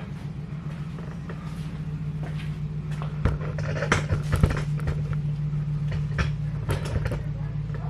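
Light clicks and knocks of tools and metal hardware being handled, several of them between about three and seven seconds in, over a steady low hum.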